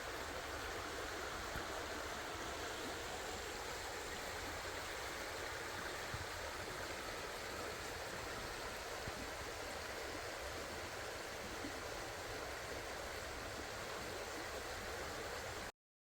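Creek water running steadily, an even rushing hiss with no change through the clip, which cuts off suddenly near the end.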